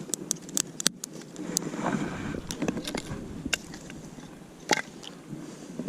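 Freshly lit campfire of dry branches crackling, with irregular sharp pops over a steady low rushing noise.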